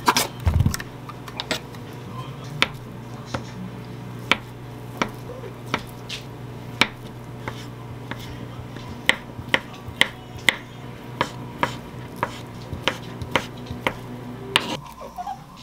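Kitchen knife cutting canned ham on a wooden cutting board: sharp separate knocks as the block is sliced, growing quicker and closer together as the slices are diced into small cubes. A dull thud comes about half a second in, as the ham is worked out of its tin.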